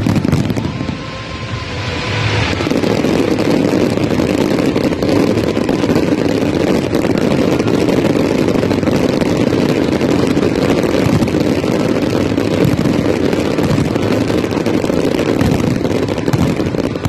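Fireworks display at full barrage: many shells, mines and fountains going off at once and blending into a continuous loud rumbling roar with crackle, which builds about two seconds in and then holds steady.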